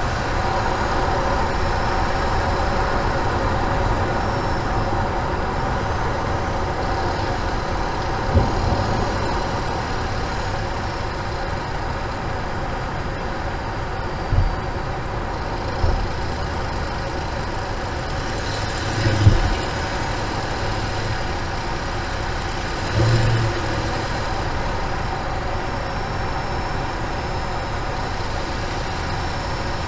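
Steady road, tyre and engine noise inside a Hyundai Genesis sedan cruising at highway speed. Five short low thumps come through scattered across the stretch, the loudest about nineteen seconds in.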